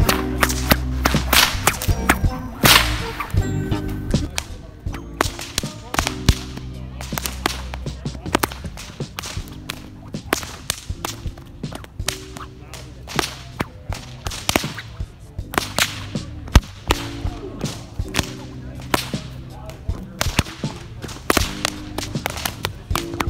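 Bullwhips cracking over and over: sharp cracks at an irregular pace, often several a second, over background music.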